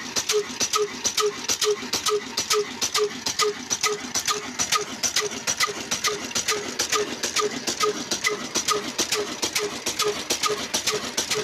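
Old black Ruston-type single-cylinder stationary diesel engine running steadily at slow speed, with an even, rhythmic knock and clatter of about three beats a second.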